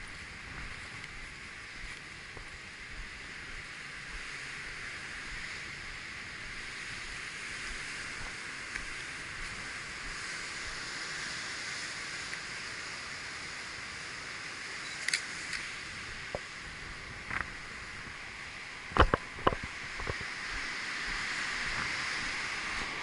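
Steady rush of water discharging from the dam's outlet into the channel far below. In the second half come a handful of sharp clicks from a DSLR camera, the loudest two about half a second apart.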